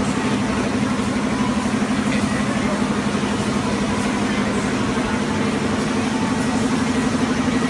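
Continuous band-type bag sealer with a vacuum and nitrogen-flush unit running: a steady machine hum with a fast, even flutter.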